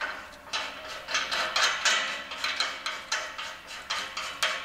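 Metal clicking and scraping of a brass GasStop POL propane shut-off valve being turned by hand into a propane tank's service valve, a quick irregular run of small clicks.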